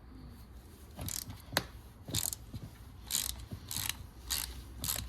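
Hand ratchet wrench being worked back and forth on a nut: a rapid clicking burst on each stroke, about every half second.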